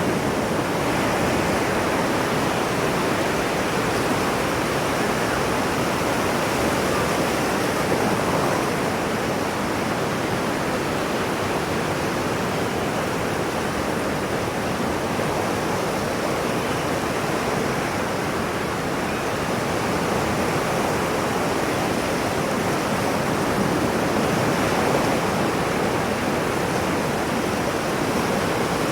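Ocean surf: a continuous rushing wash of waves with slow, gentle swells in loudness.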